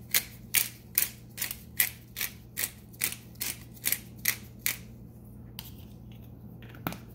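Pepper grinder being twisted by hand: an even run of short grinding strokes, about two and a half a second, that stops about two thirds of the way through, followed by two last single turns.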